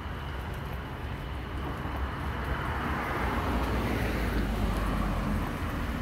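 A car passing on the street, its tyre and engine noise swelling to a peak about halfway through and fading again.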